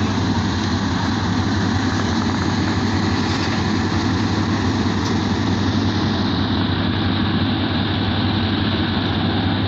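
Diesel engine of a passenger train standing at the platform, idling steadily with a constant low hum.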